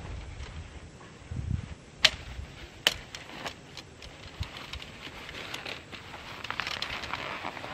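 Camping gear being handled in an orange stuff sack: two sharp clicks about two and three seconds in, then fabric rustling as the bag is lifted and moved near the end.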